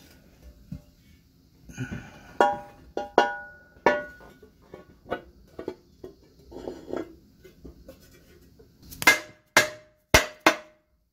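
Cast-aluminium bellhousing being knocked into place over the engine block's offset alignment dowel pins with a rubber mallet: about a dozen sharp knocks, many with a short metallic ring, the four loudest near the end about half a second apart.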